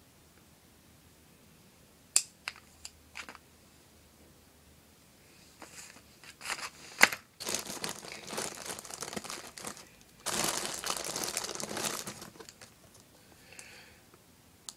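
A few light clicks, then several seconds of crinkling and rustling as something is handled and crumpled, loudest in a steady stretch about ten seconds in.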